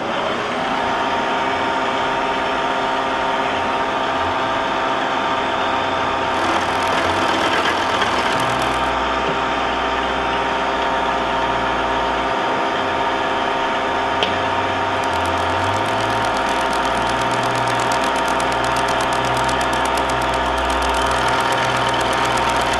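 Vertical milling machine running with a steady motor-and-gear whine while its shell mill cuts a notch into a bearing-block casting. A fine rapid ticking of the cutter's teeth in the metal comes in for a few seconds, drops away, and returns steadily over the second half, with a low rumble coming and going beneath it.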